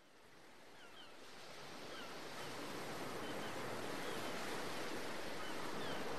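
Recorded ocean surf fading in as a track intro, a steady wash of noise that grows louder throughout, with short high chirps like small birds scattered over it.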